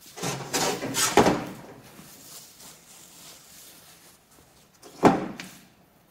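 Heavy cast-iron lathe tailstock being turned and shifted on a metal workbench: scraping and clunking for about a second and a half, then a single sharp clunk about five seconds in.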